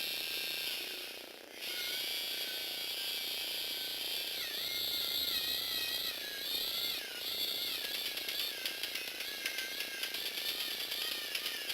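Small electric motors whining through the plastic gears of a Lego Technic stepless speed change drive, the pitch rising and falling as the speed changes. The sound drops out briefly about a second and a half in, and from about eight seconds on rapid clicking of gear teeth joins the whine.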